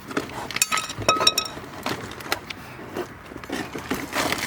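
Metal car parts and tools being handled during a brake job: a few clinks and knocks, one metal piece ringing briefly about a second in.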